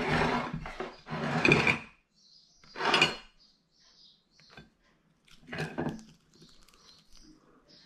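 A china plate and a steamed spider crab being handled on a wooden table: several short bursts of scraping and knocking, with quiet stretches between them.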